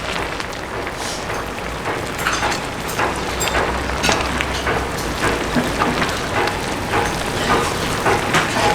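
Chicken stew sizzling and bubbling in a cauldron lid over a crackling oak-wood fire: a steady hiss full of small pops and crackles over a low rumble.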